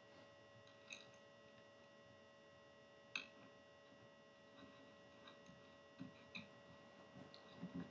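Near silence over a steady mains hum, with a few faint clicks and taps of metal parts being handled as the muzzle brake is fitted to the AR's threaded barrel; the sharpest tap comes about three seconds in, and the taps grow more frequent near the end.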